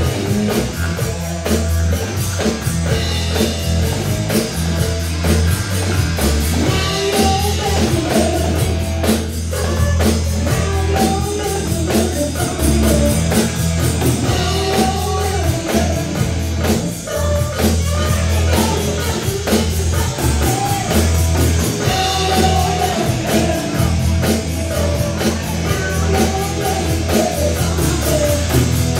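Live rock band playing: a woman sings lead over electric guitar, electric bass and a drum kit, with a steady beat and a heavy bass line throughout.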